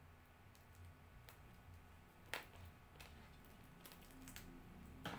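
Near silence with a low steady hum and a handful of faint clicks and taps as a small potted caladium is handled, the loudest a little over two seconds in.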